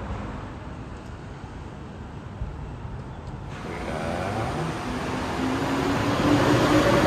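Low rumble of vehicle noise. About halfway through it gives way to a louder engine-like hum that rises slowly in pitch, as of a vehicle or motor speeding up.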